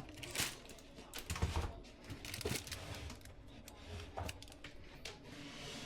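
Faint scattered clicks and light knocks of small objects being handled, with a couple of soft thumps.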